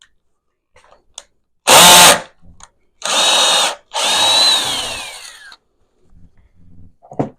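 Power drill run in three short bursts on the trigger; in the last burst the motor's whine rises and then falls away as it winds down after release. A few light knocks come between the bursts and near the end.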